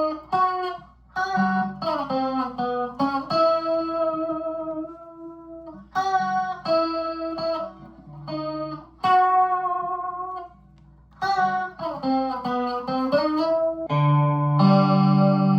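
Harley Benton S-Style electric guitar played with a clean tone: single picked notes in a lead line, several bent up or down in pitch, with a couple of short pauses. Near the end a fuller chord rings out.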